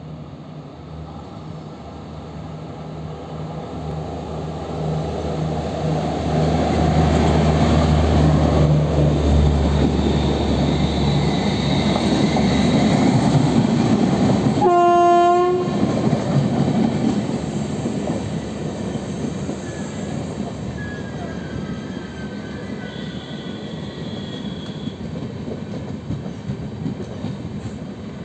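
An Indian Railways WAP-4 electric locomotive and its express coaches run through a station without stopping. A steady low locomotive hum and wheel rumble build up as the train draws near. One short horn blast comes about halfway. The passing coaches then keep rumbling over the rails with a few brief wheel squeals, slowly fading.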